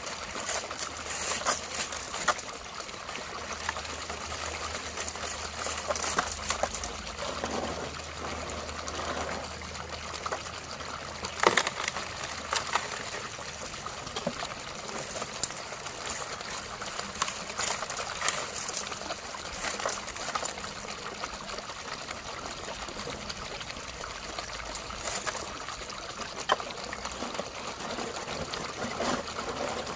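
Water trickling and splashing steadily, with scattered sharp clicks and knocks.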